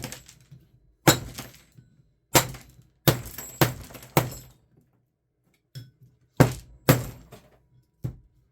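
Sharp cracks and knocks as a plastic power strip casing is broken open to get at the brass contacts and wires, about eight hard strikes at an uneven pace with a pause in the middle.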